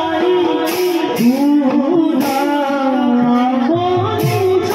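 Music with a singing voice, played through stage loudspeakers, with short bright hits every second or so.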